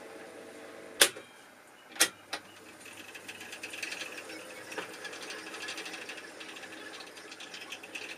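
Agaphone wire recorder: two sharp clicks about a second apart, then a smaller one, after which the machine runs with a fast, even mechanical chatter.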